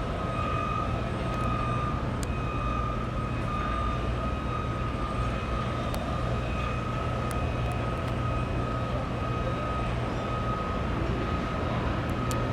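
Steady drone of construction-site machinery, a low engine hum with a constant high whine above it and an even rushing background, unchanging throughout.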